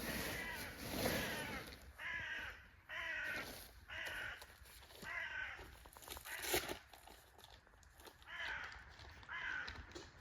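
A crow cawing: a series of harsh calls about a second apart, with a pause in the middle. A sharp click sounds about six and a half seconds in.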